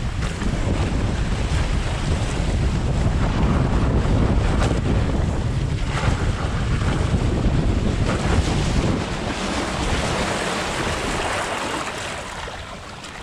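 Rushing, splashing water and heavy wind buffeting on the microphone of a camera riding head-first down a mat racer water slide on a foam mat. The rush eases off near the end as the slide levels out.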